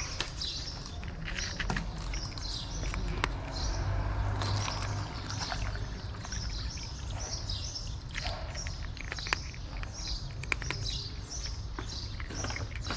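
Small birds chirping over and over, with sharp clicks of a cat crunching dry kibble. Water pours from a plastic bottle into a plastic cup around the middle.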